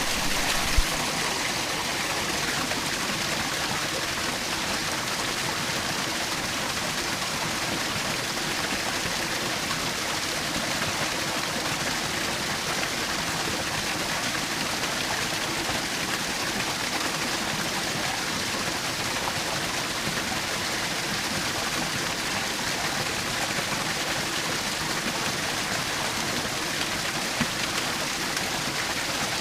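Small woodland waterfall splashing and rushing steadily, an even, unbroken water noise. A single sharp click a little under a second in.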